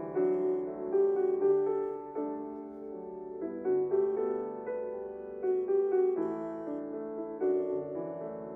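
Soft background piano music, slow notes and chords played gently.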